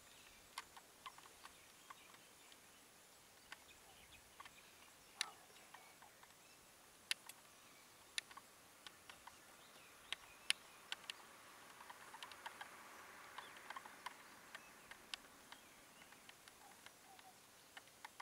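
Near silence: faint outdoor ambience broken by scattered sharp clicks and ticks, with a faint hiss for a couple of seconds past the middle.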